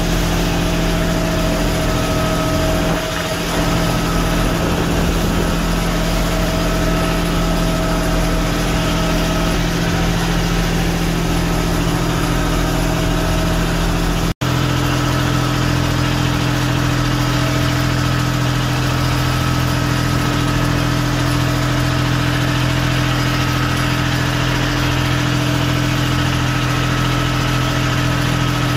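A tour boat's engine running steadily under way. It drops out for an instant about halfway, then goes on at a slightly different pitch.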